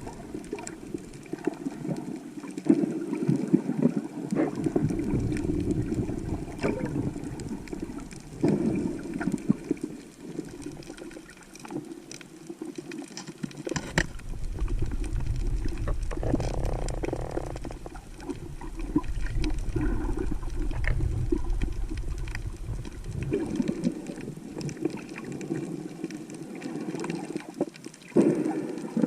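Seawater sloshing and gurgling around a camera held at or just below the surface while snorkeling. The sound swells and fades unevenly, with a deeper rumble of water in the middle stretch.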